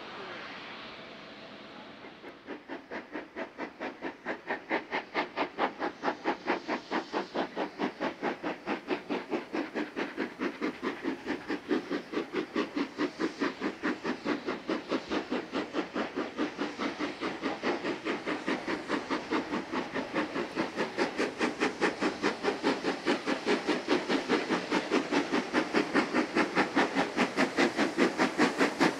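Steam locomotive 3526, a 4-6-0, working under steam as it approaches: an even rhythm of exhaust chuffs, about three a second, starting a couple of seconds in and growing steadily louder, with a steam hiss underneath.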